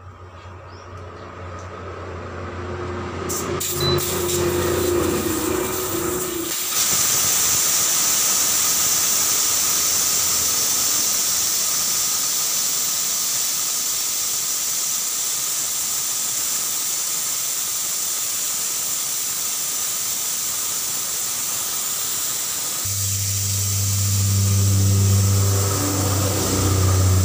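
Air hissing steadily out of a mini-truck tyre's open valve as the tyre is deflated. About four seconds from the end, a low engine hum joins in.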